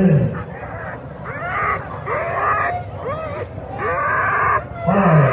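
Harnessed sled dogs yelping and howling in excitement at a race start, a rapid string of rising-and-falling cries, with a few deeper cries at the start and near the end.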